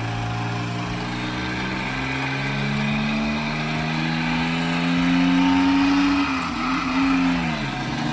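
Porsche flat-six engine sound from the 1:4 scale model engine's sound module, revving, with the pitch slowly climbing for about six seconds, then dropping and coming back up near the end.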